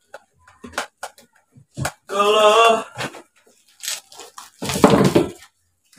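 Plastic fan housing and parts being handled during disassembly: scattered light clicks and knocks. About two seconds in there is a short wavering pitched call, and near the end a loud rasping noise lasting under a second.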